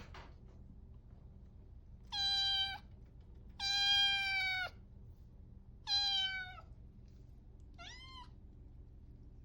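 A domestic cat meowing four times, a short pause between each; the second call is the longest, and the last is brief and quieter, rising and then falling in pitch.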